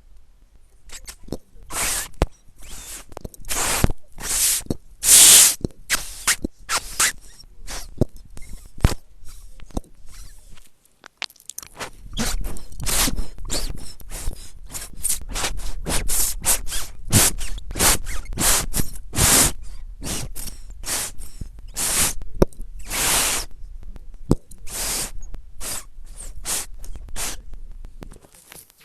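Loud crunching and scraping noises in rapid, irregular short bursts, with a pause of about a second around eleven seconds in.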